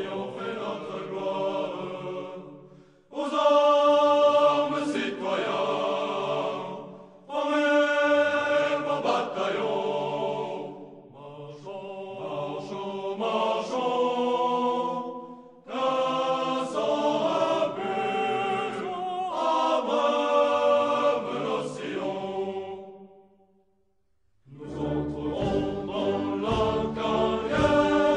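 Choir singing in long phrases, each a few seconds long with short breaks between them. Near the end there is a brief silence, then fuller music with a low bass and percussive strokes comes in.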